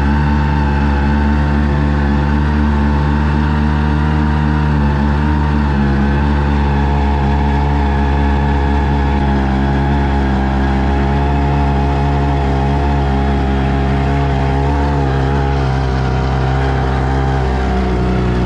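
Outboard motor running steadily, driving an inflatable boat along. Its hum stays even, with slight shifts in pitch about five seconds in and again near the end.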